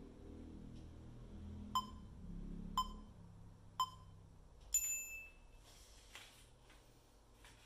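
Workout interval timer counting down: three short beeps about a second apart, then a longer, higher-pitched beep that marks the end of the timed stretch. Faint rustling follows as the body shifts on the foam mat.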